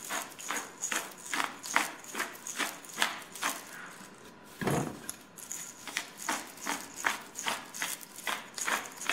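Hand-held pepper mill grinding black pepper over a raw chicken: a steady run of short crunching clicks, about three a second, with a brief pause and a dull thump about halfway through.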